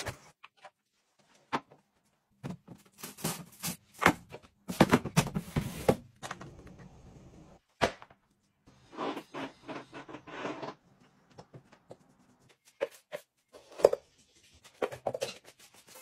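Close-up household cleaning and handling sounds in short separate bursts: scattered knocks and taps, with a few stretches of scrubbing and rubbing a second or two long.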